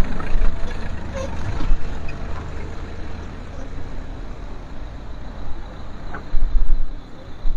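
Cars rolling slowly over a broken, gravelly, potholed road, engine and tyre noise. The rumble grows louder near the end as another car comes close.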